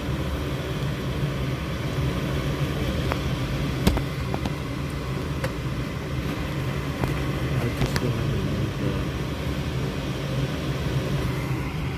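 Gas furnace running with a steady low mechanical hum. Light clicks and one louder knock, about four seconds in, come from handling parts inside the open cabinet.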